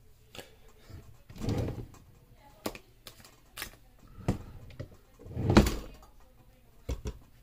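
Irregular clicks and knocks from hands handling small objects on a countertop, with two louder muffled thumps: one about a second and a half in, and the loudest about five and a half seconds in.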